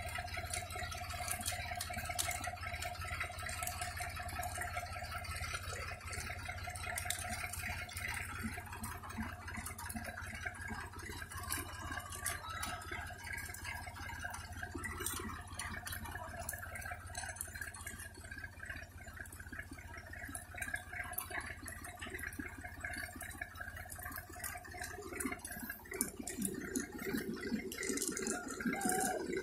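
Seed drill working through dry soil: a steady low hum under scattered rattling clicks, with louder rattling for the last few seconds.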